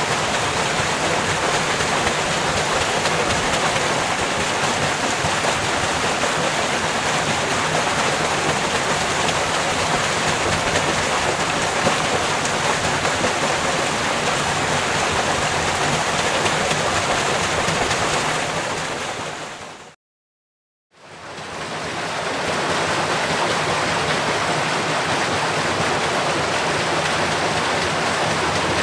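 Watermill water wheel turning under a steady rush and splash of falling water. About two-thirds of the way through, the sound fades out, stops for about a second, and fades back in.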